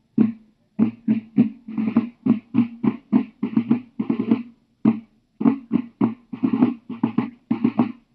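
Field drums beating a marching cadence: a quick run of separate strokes and short rolls, each with a short ringing tone.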